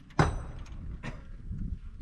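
A sharp metal clank with a brief high ring about a quarter-second in, then a few softer metallic knocks, from hands and tools working on the open top of an excavator's diesel engine.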